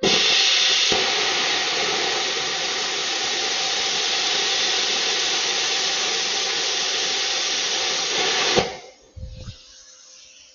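Handheld plasma cutter cutting metal: a loud steady hiss of the arc and air that starts abruptly and cuts off suddenly about eight and a half seconds in. A short low thump follows.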